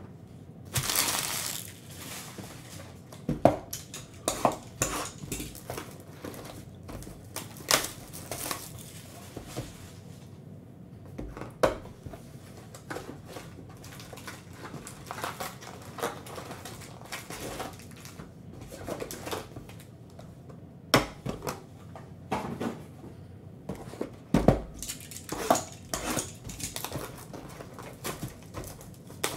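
Hands opening a cardboard trading-card hobby box and handling the packs and cards inside: scattered sharp taps and knocks of cardboard with rustling in between, a longer rustle about a second in.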